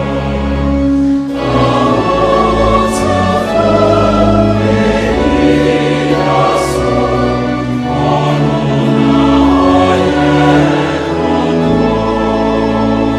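Choir singing a slow piece in long held chords.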